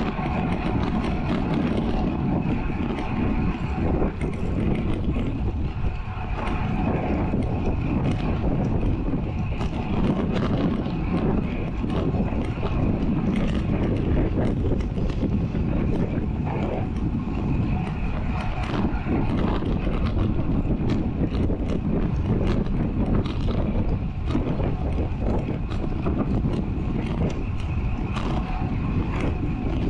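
Wind rushing over an action camera's microphone on a road bike riding at about 35 km/h, with the tyres rolling on tarmac; a steady, loud noise throughout.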